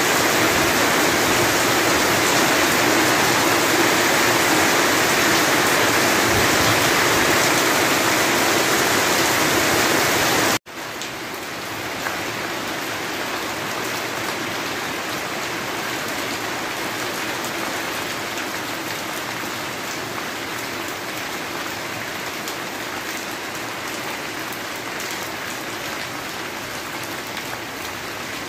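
Steady rain, an even hiss of falling drops. About ten seconds in it cuts out for an instant and carries on noticeably quieter.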